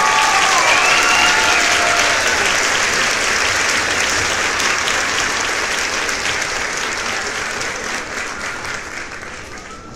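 A group of people clapping, with a few voices calling out in the first two seconds; the applause slowly dies down toward the end.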